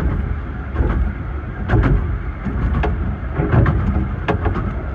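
Rumble and rattle of a 15-inch gauge miniature railway carriage running along the track, heard from inside its rear compartment, with irregular clicks and knocks from the wheels and running gear.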